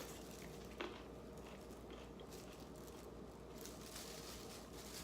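Faint crunchy chewing of a bite of boiled broccoli, a few soft crisp crunches with one sharper click about a second in.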